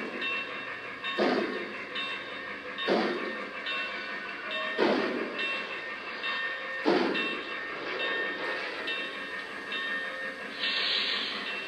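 Onboard sound system of a Lionel Legacy Pennsylvania Railroad B6sb 0-6-0 switcher model playing slow steam-locomotive chuffs, about one every one and a half to two seconds and spacing out as the engine slows. The chuffs stop about seven seconds in, leaving a steady hiss, with a short burst of hiss near the end.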